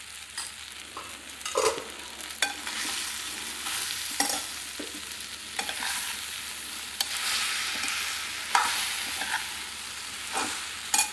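Idli pieces frying in a red frying pan with a steady high sizzle while a steel spoon stirs and turns them, its scrapes and knocks against the pan coming irregularly about once a second.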